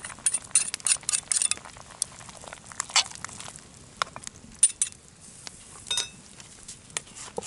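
A metal ladle clinks against a cast-iron camp oven as a stew is stirred. A quick run of clinks comes in the first second and a half, then scattered knocks follow, with one ringing clink about six seconds in.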